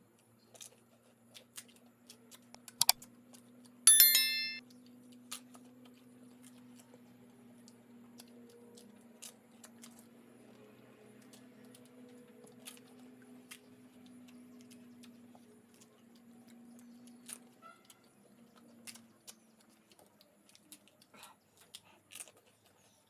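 Pani puri being eaten: scattered crisp crunches and clicks as the puri shells are bitten and chewed. A loud sharp click comes just before a bright ringing clink about four seconds in. A faint steady hum runs underneath and fades out near the end.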